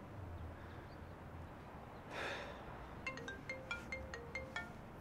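Mobile phone ringing with a marimba-style ringtone: a quick run of short mallet-like notes, about three or four a second, starting about three seconds in. A brief soft rush of noise comes just before it.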